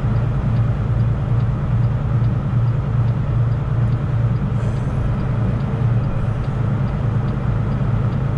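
A semi truck's diesel engine drones steadily with road noise, heard from inside the cab while driving. A faint, regular ticking runs through it.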